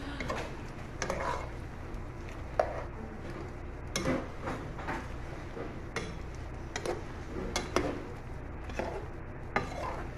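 A metal spatula scraping and clinking against a metal cooking pot while shrimp are stirred, in irregular strokes with a few sharper knocks that ring briefly. A steady low hum runs underneath.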